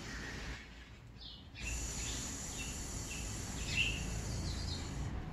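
A woman breathes in, then about one and a half seconds in lets out a long, steady hissed exhale on a held consonant that slows the outgoing air, a breath-training exercise for singing. It stops just before the end. Birds chirp faintly over it.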